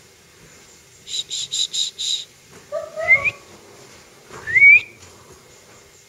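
Short whistled calls: a quick run of five high chirps about a second in, then two rising whistles, the second and loudest about four and a half seconds in.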